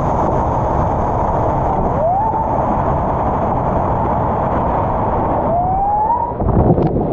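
Loud, steady roar of a powerful whitewater rapid. Two short rising whistle-like tones cut through, one about two seconds in and a longer one near six seconds, and a sharp knock comes near the end as the kayak slides off the rock ledge.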